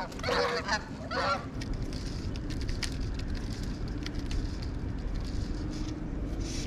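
Waterfowl giving several honking calls in the first second and a half, then a steady low rumble with a few faint ticks.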